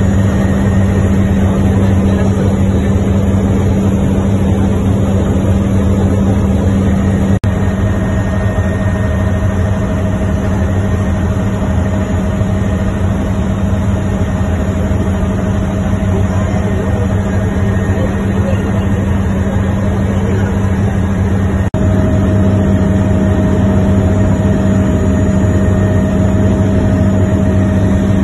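Helicopter in flight heard from inside the cabin: a steady, loud rotor and engine drone with a deep low hum, broken only by two momentary dips.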